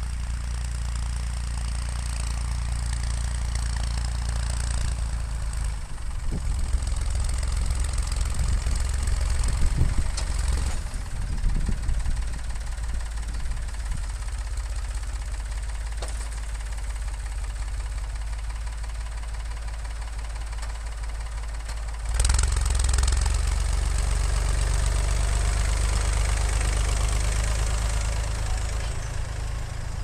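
David Brown 780 tractor's three-cylinder diesel engine running as the tractor works a front-loader bale squeeze to pick up a stack of small square hay bales. The engine grows louder as it comes close, and about three-quarters of the way through it steps up sharply, revved higher as the tractor pulls away.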